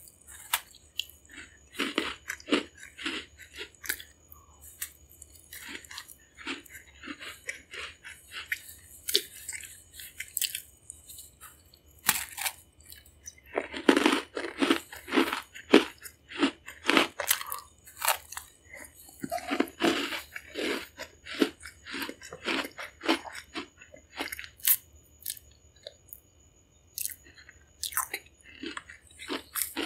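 A person biting and chewing Mexican sweet bread (pan dulce) close to the microphone: a steady run of short crunchy chews and mouth clicks, busiest in two spells near the middle.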